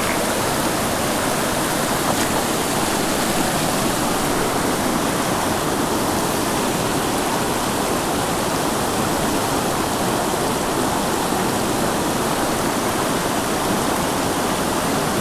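Mountain creek rushing over rapids: a steady, unchanging hiss of white water.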